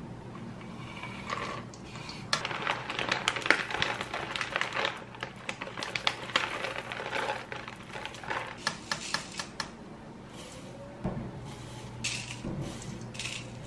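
Chopped walnuts scraped off a wooden cutting board into a stainless steel mixing bowl, then chocolate chips poured from a bag, rattling into the bowl in quick clusters of small clicks. Near the end, a few knocks as rolled oats are scooped in with a plastic measuring spoon.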